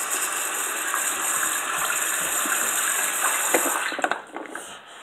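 Bathroom sink tap running in a steady gush, turned off about four seconds in, with a few light knocks as it stops.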